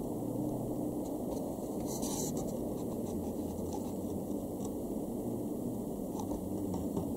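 Steady low rumble of background noise picked up by a handheld camcorder's microphone, with a brief scratchy handling noise about two seconds in and a few faint ticks later.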